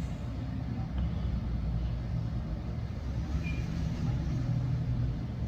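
Steady low rumbling background noise with a faint hum, and no clear distinct event.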